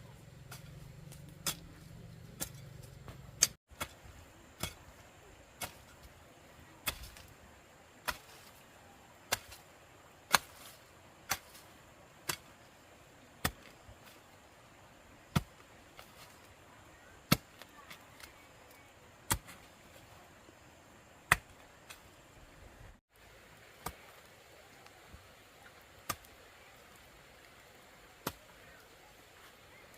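A series of sharp, single knocks or strikes, about one a second at first and then slowing to about one every two seconds, over a quiet background.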